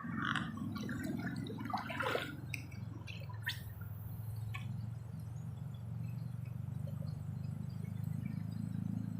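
Small water splashes and drips over a steady low rumble, with scattered clicks in the first few seconds and a quick falling swish about three and a half seconds in.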